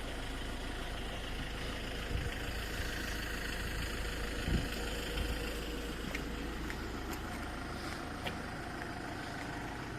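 An engine idling steadily, an even low hum that does not change, with a few faint ticks.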